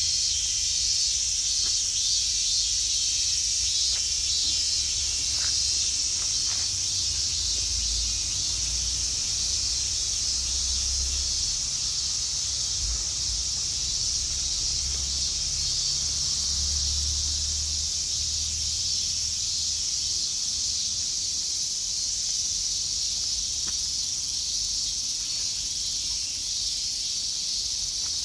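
Steady, high-pitched chorus of insects shrilling without a break, with an uneven low rumble underneath.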